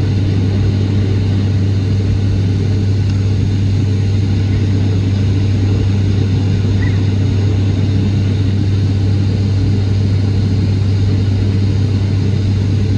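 Airliner cabin noise in flight: a steady drone of engines and airflow with a strong low hum underneath, unchanging throughout.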